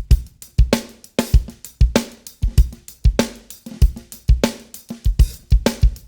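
Recorded drum kit loop playing: kick, snare, hi-hat and cymbals in a steady groove, run through a TK Audio Transformer rack saturation unit that adds crunch and thickness to the low end.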